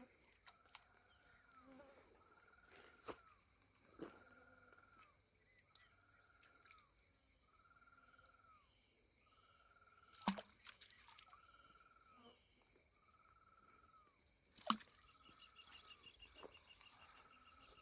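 Faint dusk chorus: insects hum steadily at a high pitch, and a short arching call repeats about once a second. Two sharp knocks stand out, one about ten seconds in and one near fifteen seconds.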